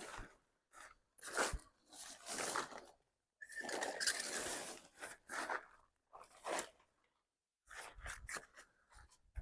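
Nylon tent fabric and frame being handled during assembly: irregular bursts of rustling and scraping, the longest about four seconds in, opening with a brief squeak.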